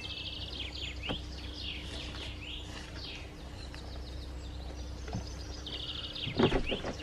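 Songbirds chirping and trilling, many short calls and quick trills over a faint steady hum. A brief cluster of knocks about six and a half seconds in.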